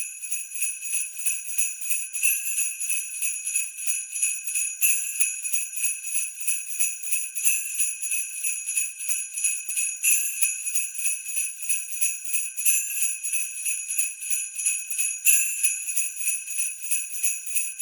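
Sleigh bells shaken in a fast, steady rhythm, with a stronger shake about every two and a half seconds.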